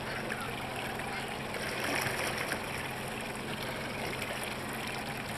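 Steady rush and trickle of sea water along a small tour boat's hull, with a low steady hum underneath.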